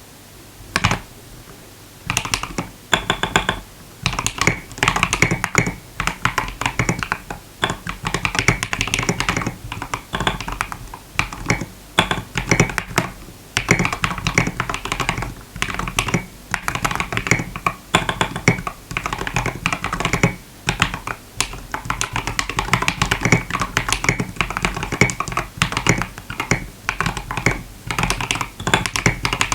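Typing on a TM680 65% mechanical keyboard: runs of keystroke clicks with short pauses between them, starting about a second in.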